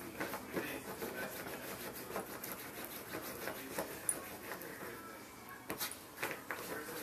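Bedlington terrier puppy digging and scratching at a fabric dog bed with its paws: irregular rubbing scratches on the cloth cushion.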